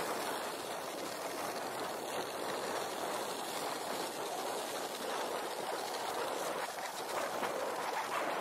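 Cross-country skis gliding downhill in groomed classic tracks: a steady hiss of the ski bases running over the snow, with no separate strokes.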